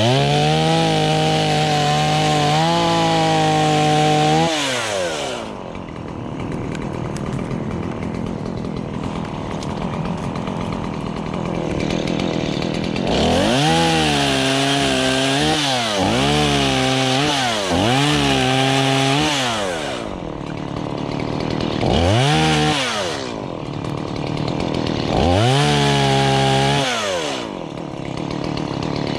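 Chainsaw engine cutting up fallen trees. It is revved up repeatedly and falls back between revs, with a longer stretch of rougher, less even running under load in the first half.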